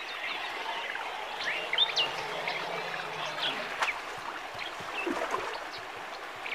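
Many short, quick bird chirps over the steady rush of river water.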